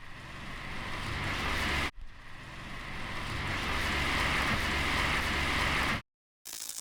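Car road-noise sound effect: a rushing of tyres on the road over a low engine rumble, building for about two seconds, cutting out, then building again for about four seconds before stopping abruptly.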